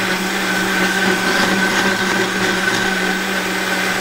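Vitamix blender motor running at a steady speed, puréeing roasted strawberries with lemon juice: an even, loud whine and hum with no change in pitch.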